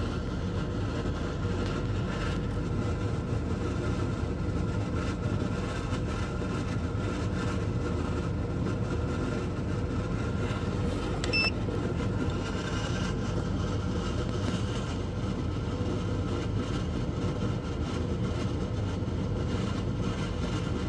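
12 V under-bunk air conditioner running on turbo: a steady compressor hum under a rush of air from its fan, pumping a lot of air. A short beep about halfway through.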